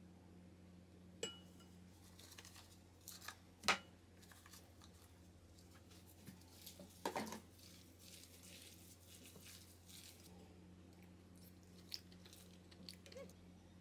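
Sparse kitchen handling sounds over a quiet room: a few light clicks and taps, the loudest near four seconds in and a short cluster about seven seconds in.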